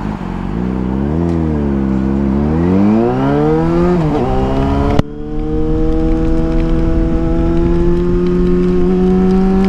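Yamaha FZ6 Fazer's 600 cc inline-four engine under way, its note rising as the bike accelerates, dropping briefly about four seconds in, then holding a steady, slowly climbing pitch. A single sharp click about five seconds in.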